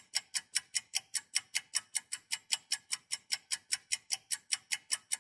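Countdown timer sound effect: rapid, even ticking of about five ticks a second, marking the time running out to guess.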